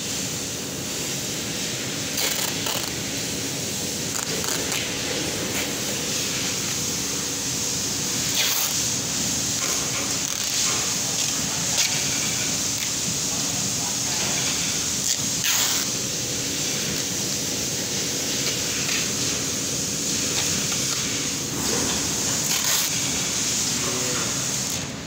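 Hot press machine running with a steady hiss and low hum, with occasional short knocks and clicks.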